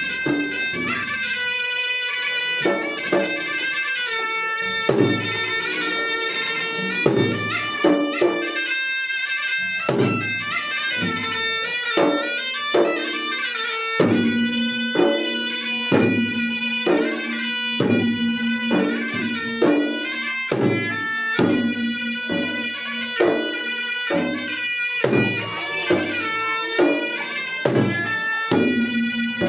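Makassarese gendang ensemble playing: a shrill double-reed wind instrument of the puik-puik kind carries an ornamented melody over steady, rhythmic strokes of the two-headed gendang drums. About halfway through, a low held note joins in beneath the melody.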